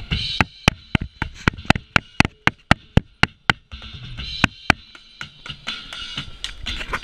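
Drum kit played with sticks: a run of even single strokes, about four a second, for the first three and a half seconds, then looser, busier hitting to the end.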